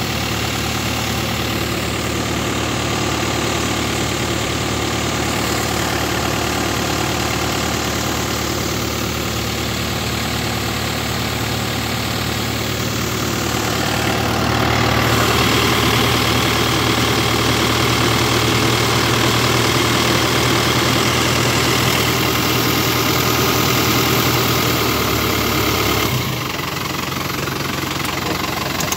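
Tractor engine running steadily while it drives the hydraulics that unfold the boom arms of a Parlayan 3000-litre trailed field sprayer. The sound gets louder and harsher about halfway through and drops back near the end.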